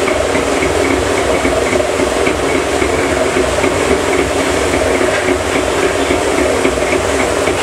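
Large rotating metal sugar-coating pan turning, with a mass of small sugar candies (elaichi dana) tumbling against the inside of the drum and its drive running: a loud, steady rushing noise with a faint regular ticking.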